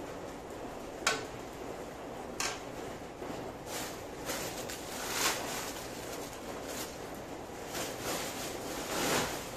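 A metal ladle knocks sharply against a large steel wok twice, about a second in and again just over a second later, over a steady hiss. Several softer, noisy swells follow later on.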